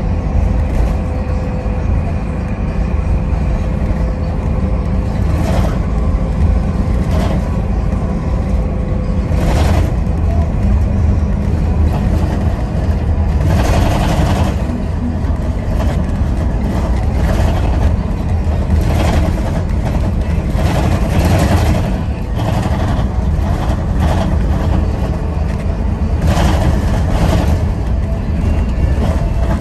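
A heavy vehicle's engine running with a steady low rumble. Short hisses come every few seconds, about eight in all.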